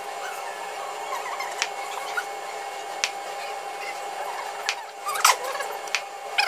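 Large kitchen knife cutting a glazed berry tart into wedges: scattered sharp clicks as the blade presses through the pastry crust onto the cardboard cake board, the loudest about five seconds in. A steady hum runs underneath.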